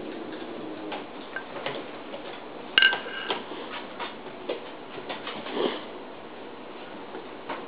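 Irregular light clicks and taps of a puppy's claws on a hardwood floor as it moves about, with one sharper clink that rings briefly about three seconds in.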